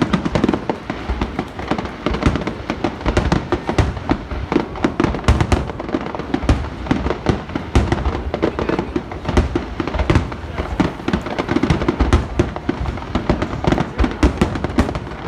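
Fireworks display in a dense, unbroken barrage of rapid overlapping bangs and crackles, typical of a fireworks show's climax.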